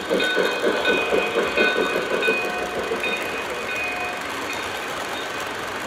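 O gauge model steam locomotive passing with a rhythmic chuffing, about four or five chuffs a second, that fades out midway as its tender and passenger coaches roll past on the track.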